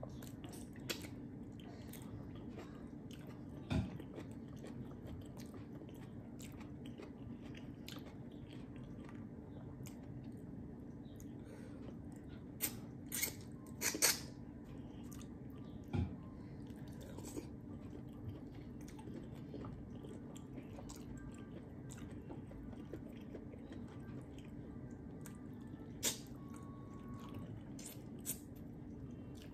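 A person eating close to the microphone: chewing and biting with scattered sharp mouth clicks and smacks, a cluster of louder ones about halfway through. A low steady hum runs underneath.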